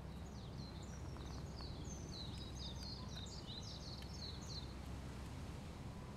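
A small songbird singing a quick run of short, high, down-slurred notes for about four and a half seconds, over a steady low background rumble of outdoor ambience.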